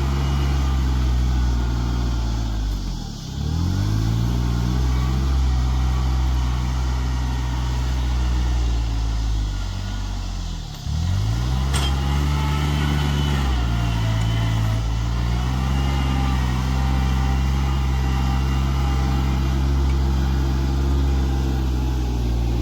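Engine running steadily under load. About 3 seconds in and again about 11 seconds in, it slows sharply and then picks back up.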